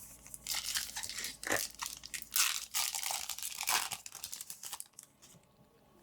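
Foil booster-pack wrapper crinkling and tearing as a trading-card pack is opened, a run of bursts of rustling for about four seconds before it goes quiet.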